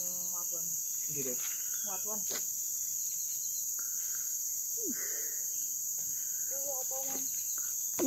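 Steady, high-pitched drone of insects, unbroken and even in level.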